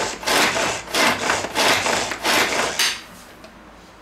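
Pull-cord manual food chopper being yanked repeatedly, its blades spinning through quartered onion with a noisy stroke on each pull, about two or three pulls a second. The pulling stops about three seconds in.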